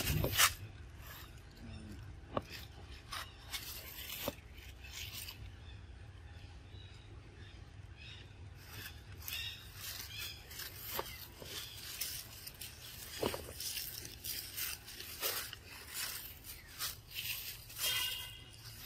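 Scattered rustles, small scrapes and clicks of macaques moving on dry leaf litter, over a steady low rumble, with a louder knock right at the start.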